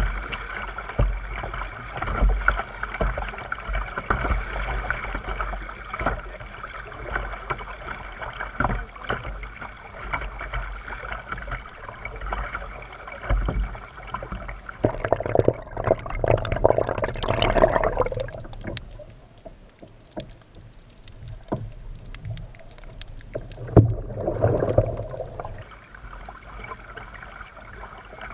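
Kayak paddling: paddle strokes dipping and splashing, with small knocks against the hull. Underneath is a steady high drone of cicadas that weakens after about halfway. There are two louder swishes of water, one a little past halfway and one near the end.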